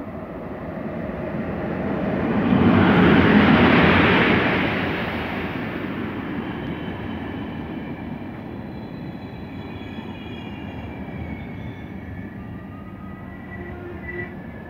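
Electric-locomotive-hauled passenger train passing along the platform: the noise builds to its loudest as the locomotive goes by about three seconds in, then the coaches run past in a steady rumble. Faint thin high squeals from the wheels come in over the rumble in the second half.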